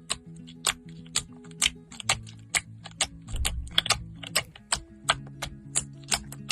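Slime being pressed and poked, making sharp clicking pops about twice a second, over calm background music with low, held notes.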